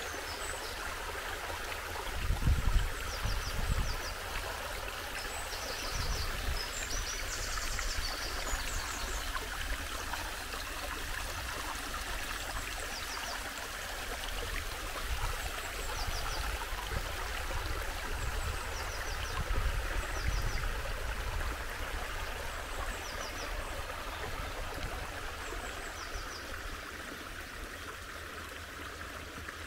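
Small snowmelt stream rushing steadily over gravel and stones, with a few low rumbles, the loudest about two seconds in. Faint short high chirps repeat now and then.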